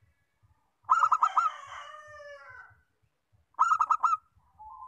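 Zebra dove (perkutut) cooing: two phrases, each a quick run of about five rolling notes, the first trailing off into a longer falling note.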